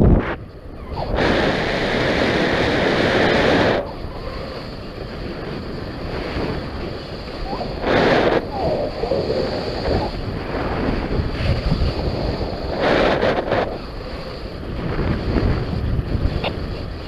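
Wind buffeting the microphone in gusts, with a louder rush from about a second in to nearly four seconds, and shorter surges later on.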